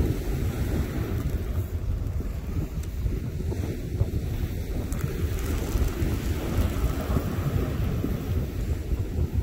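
Wind buffeting the microphone in a steady low rumble, over the wash of small waves breaking on the beach.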